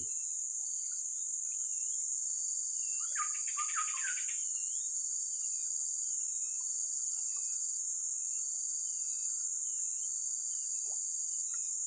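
Steady high-pitched drone of insects, with a bird repeating short dipping whistled notes about once a second and a brief louder chattering call about three seconds in.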